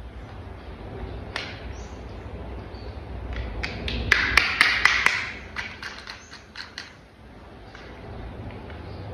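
Hard plastic toy parts being handled and fitted together: a few taps, then a quick run of a dozen or so sharp clicks and a short scrape in the middle, over a low steady hum.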